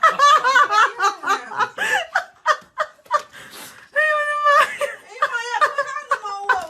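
A person laughing in rapid, repeated bursts, then a held vocal note at one steady pitch about four seconds in.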